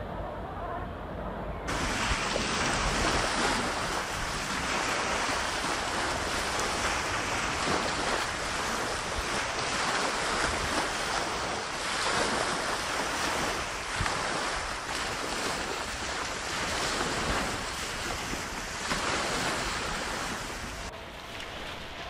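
Small waves breaking and washing up on the shore, with wind. The surf comes in about two seconds in, surging up and down, after a quieter start, and eases near the end.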